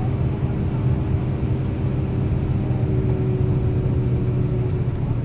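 Motor vehicle running steadily: a constant low engine hum with road noise.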